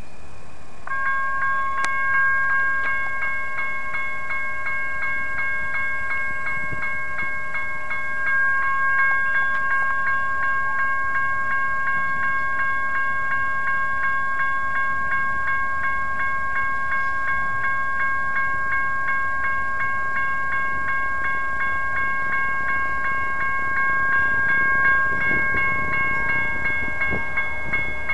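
Railroad crossing signal bell starts ringing about a second in, with rapid, evenly spaced strikes over a steady ringing tone, as the crossing signals activate for an approaching train. A low rumble builds near the end.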